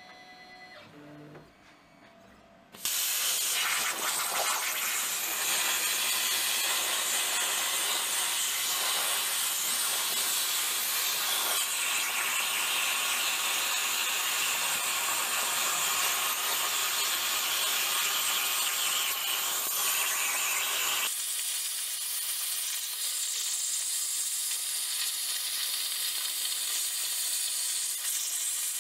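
Razorcut 45CNC plasma cutter's machine torch on a Langmuir Crossfire Pro table cutting steel plate: about three seconds in the arc fires with a sudden loud, steady hiss that runs on as the torch traces the part. About two-thirds of the way through, the lower, rougher part of the hiss drops away while the high hiss continues.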